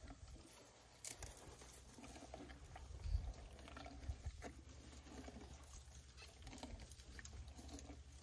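An African elephant feeding, chewing and crunching bark and twigs in its mouth: faint scattered crunches and snaps, with a louder crunch about three seconds in.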